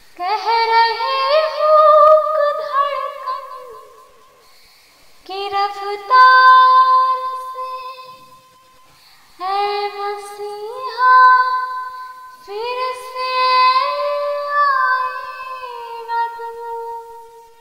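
A woman singing four long melodic phrases in a high voice, stepping from note to note and holding notes, with short pauses between the phrases and no accompaniment heard.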